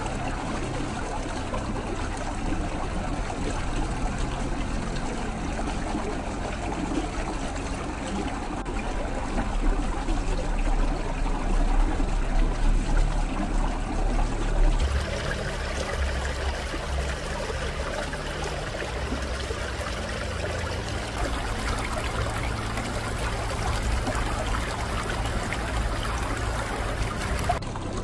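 Water trickling and splashing in a small, partially frozen stream. About halfway through the sound changes to a brighter, higher trickle.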